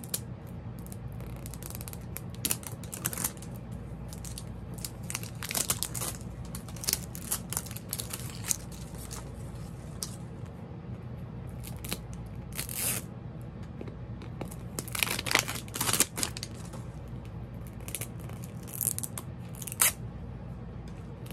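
Wrapper being peeled and torn off an LOL Surprise doll ball by hand: irregular crinkling and tearing rips, with a louder flurry a little past the middle and a few sharp rips near the end. The wrapper comes away easily.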